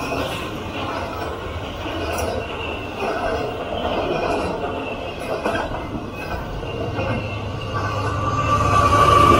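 Double-stack container freight train rolling past, with a steady rumble and clatter of wheels on rail. A thin, steady wheel squeal grows louder near the end.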